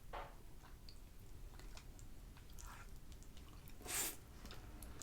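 Close-miked eating of instant fried noodles mixed with runny egg yolk: soft, wet chewing with small clicks. There is a brief, louder wet noise about four seconds in.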